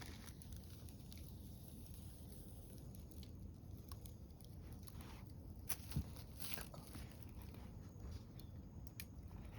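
Faint chewing and small crunching clicks of someone eating, with a single sharper knock about six seconds in.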